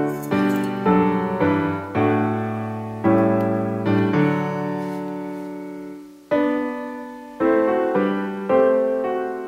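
Gentle background piano music: chords struck about every half second, one chord held and fading from about four to six seconds in, then the playing picks up again.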